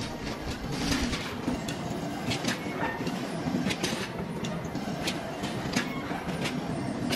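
Steady workshop machinery noise with many irregular sharp metallic clicks and clanks through it.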